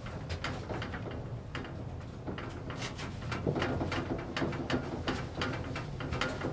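1975 KONE inclined traction elevator running: a steady low hum with irregular clicks and rattles, which grow denser and louder about three and a half seconds in.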